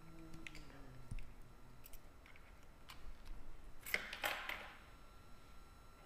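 Scattered light clicks and handling noises from working at a laptop, with a brief low hum near the start and a short rustling burst about four seconds in.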